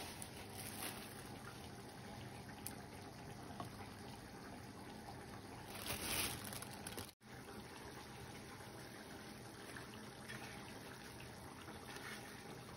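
Faint wet sounds of hands dipping raw chicken cutlets in beaten egg and pressing them into breadcrumbs, over a low steady hiss, with a louder swish about halfway through.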